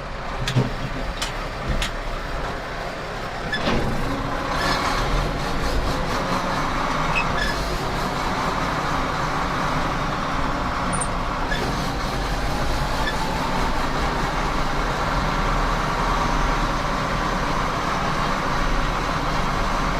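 Engine and running noise of a farm vehicle hauling a load of grain, going steadily along with a low rumble. A few sharp clicks or rattles sound in the first few seconds.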